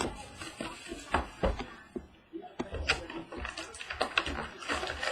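Hands handling a trading-card hobby box and its packaging: scattered light taps and clicks of cardboard with rustling of wrapper.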